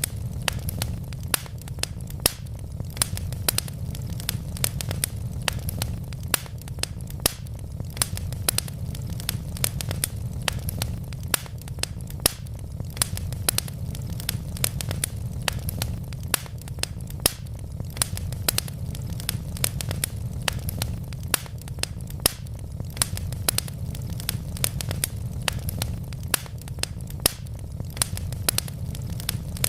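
Wood logs burning in a fireplace, crackling with frequent sharp pops over a steady low rumble.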